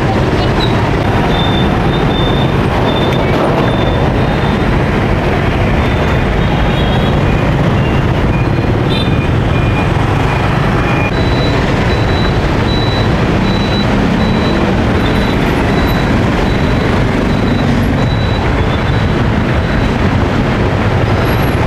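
Steady, loud road-traffic noise, with faint short high beeps repeating in the background during the second half.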